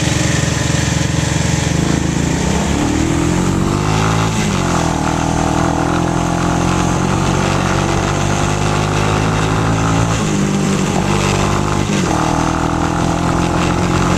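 ATV engine running under throttle, its pitch climbing about three seconds in, settling to a steady drone, then dropping and climbing again near the end.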